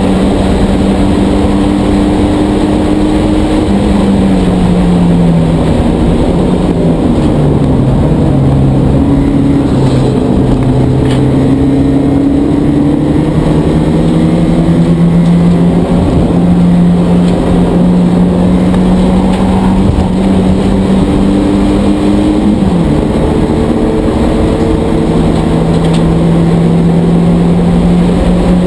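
Porsche 944 Spec race car's four-cylinder engine heard from inside the car at racing speed, over steady road and wind noise. About four seconds in the engine pitch falls and stays low for several seconds, then climbs back and holds a steady high note; later it drops once in a sudden step.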